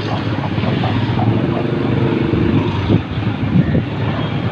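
A loud, steady, low rumble of street noise.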